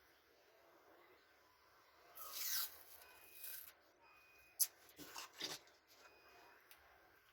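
Faint rubbing and scraping sounds, the loudest a short scrape just after two seconds and two more around five seconds, with one sharp click about four and a half seconds in and a few brief faint high beeps.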